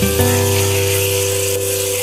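Soft background music with held chords that change about a fifth of a second in, over the hiss of food sizzling in a stainless-steel wok as it is stir-fried.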